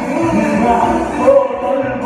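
Live Arabic pop music: a male singer singing into a microphone over amplified keyboard backing.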